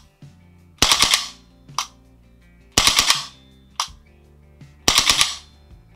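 VFC FN FNC gas blowback airsoft rifle firing short bursts on burst mode, each burst a quick run of sharp shots with the bolt cycling. There are three bursts about two seconds apart, each of the first two followed by a lighter click.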